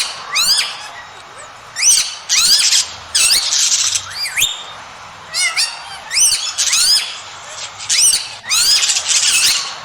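A bird calling over and over in short bursts of sweeping, squawky high notes, several in quick succession, with brief pauses between the bursts.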